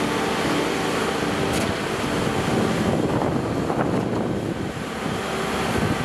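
Site machinery running steadily during a concrete pour: the diesel engines of a truck-mounted concrete pump and truck mixers, with a faint sharp knock about a second and a half in.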